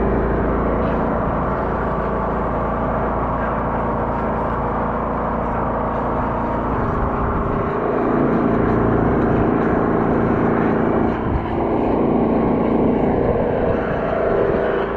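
Engine of a high-pressure drain jetter running steadily while it jets water into a downspout drain blocked by roots.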